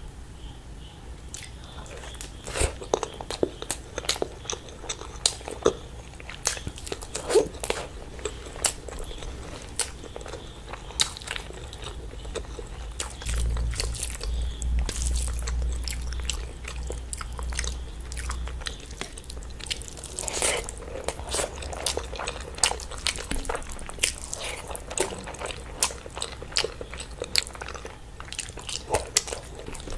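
Close-miked chewing and biting of mouthfuls of rice and curry eaten by hand, with many wet mouth clicks and smacks. A low rumble runs for a few seconds around the middle.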